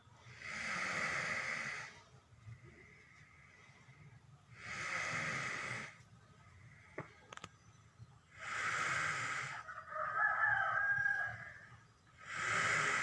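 A sleeping cow snoring: four long, hissing breaths, one about every four seconds. A chicken calls between the third and fourth breaths.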